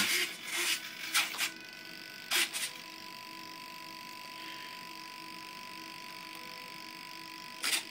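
Small radio-control servos in a glider whirring in short bursts as the control surfaces are driven from the transmitter sticks, twice in the first few seconds and once more near the end. In between comes a steady faint high whine and hum from servos held stalled against fully deployed flaps.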